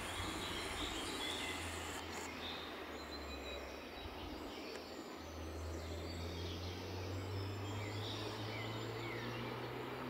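Forest birds chirping and singing in short scattered phrases over a steady background hiss, with a low hum underneath that fades just before the middle and returns, rising slightly in pitch.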